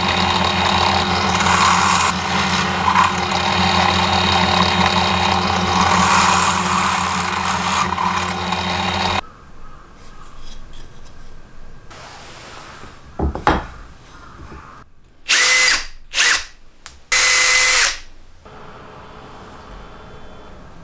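Benchtop drill press running steadily, with a low motor hum, for about nine seconds, then cutting off abruptly. Later come light handling sounds and three short power-tool bursts.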